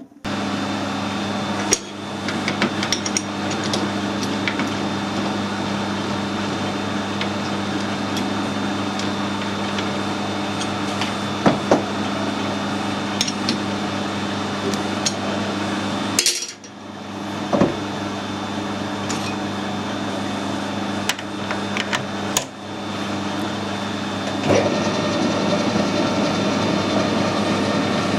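A metalworking machine tool running steadily while cutting steel bar stock, with a constant hum and scattered metallic clicks and clinks. The sound breaks off briefly twice and then starts again.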